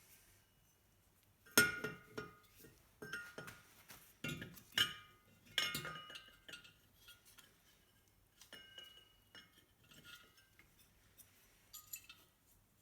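Metal parts of a diesel heater clinking and knocking together as they are handled and fitted back in place: a run of sharp, ringing clinks, then lighter taps in the second half.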